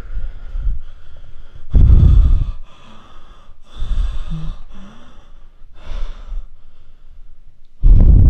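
A man's heavy, frightened breathing close to the microphone: several loud breaths about two seconds apart.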